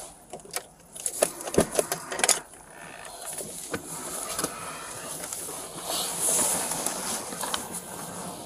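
A patrol car's driver door unlatching and opening: a quick run of sharp clicks and knocks, then rustling and a steady hiss as the officer climbs out.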